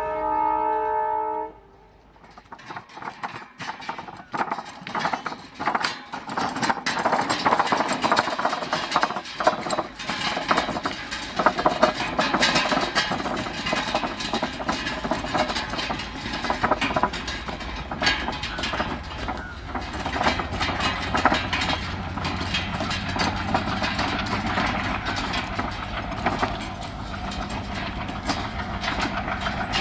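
A rebuilt ALCo WDM-3A diesel-electric locomotive's horn sounds, then cuts off about a second and a half in. Its 3100 hp 16-cylinder engine then chugs as it accelerates up a gradient, and the train clatters past on the rails. The sound builds over several seconds and then stays loud and steady.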